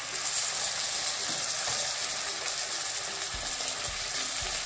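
Hot tomato-onion masala in a pan sizzling as coconut milk is poured in, the hiss growing louder as the milk hits. A wooden spatula then stirs it, giving a few soft knocks in the second half.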